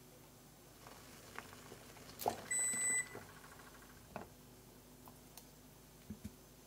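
A single electronic beep lasting about half a second, steady in pitch, from a kitchen appliance. Around it and later come a few light clicks, metal tongs touching the boiled eggs and the saucepan.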